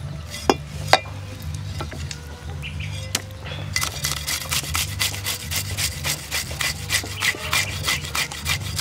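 Cleaver blade scraping scales off a whole fish on a wooden chopping block. Two sharp knocks come in the first second, then from about halfway a fast run of short, repeated scraping strokes.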